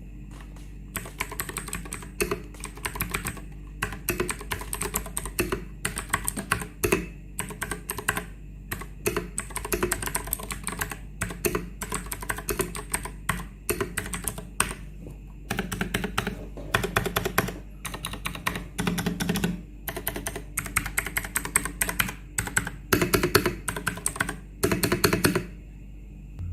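Typing on a Vortex Series VX8 75% mechanical keyboard with clicky Outemu Blue switches: fast runs of sharp key clicks with short pauses between them, stopping about a second before the end.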